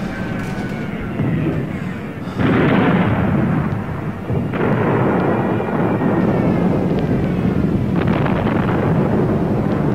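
Artillery explosions on a battle soundtrack: a continuous rumble of blasts, with new heavy blasts about two and a half seconds in, about four and a half seconds in, and about eight seconds in.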